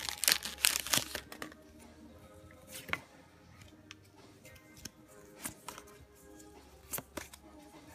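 Crinkling and rustling of a trading-card booster pack's foil wrapper and cards for about the first second and a half. After that comes quiet background music, with a few sharp clicks as the cards are handled.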